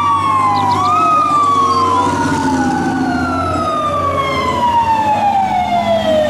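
Fire truck sirens: one siren tone falls slowly and steadily in pitch throughout, while other siren tones rise and fall over it. A steady low engine rumble runs beneath.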